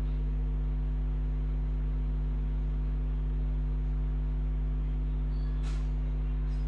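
Steady low electrical hum with several even overtones, unchanging throughout. About five and a half seconds in, a spoon scrapes briefly against the metal kadai as the cashews are stirred in ghee.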